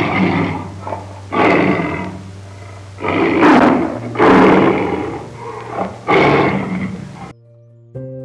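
Tiger roaring in a run of about five loud roars, each about a second long, cutting off near the end.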